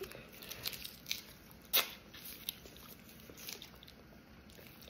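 Faint bites and mouth sounds of eating frozen Italian ice: a few soft clicks, the sharpest nearly two seconds in.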